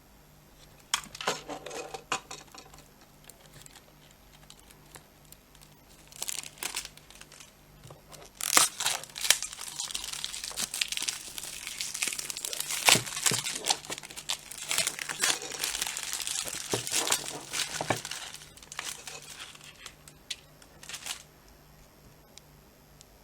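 Packaging being crinkled and torn open: a few scattered crackles, then about ten seconds of dense crinkling and tearing, then a few last crackles.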